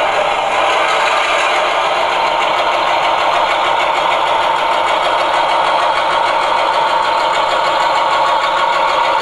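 Sound-decoder diesel switcher engine sound from a Loksound 5 decoder, playing through the small speaker in an HO-scale SW7 model locomotive as it moves at low throttle. It runs steadily, thin in the bass, as a tiny speaker gives it.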